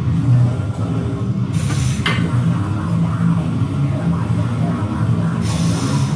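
Loud heavy rock music playing steadily, with two short bursts of hiss.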